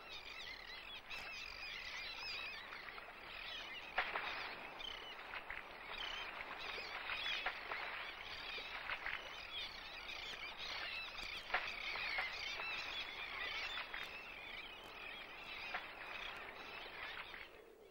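Royal tern breeding colony calling: a dense, steady clamour of many overlapping cries, with a few louder calls standing out. It cuts off near the end.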